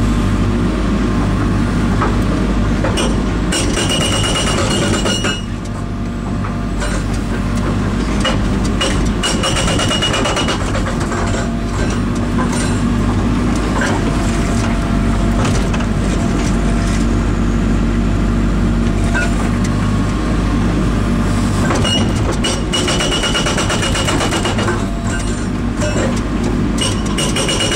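INDECO hydraulic breaker hammering with rapid, continuous blows over the steady running of the engine that drives its hydraulic pump, dipping briefly about five seconds in.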